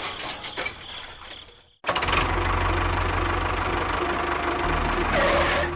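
A noisy clatter fades out over the first second or so, then after a brief silence an engine runs steadily with a fast knocking beat.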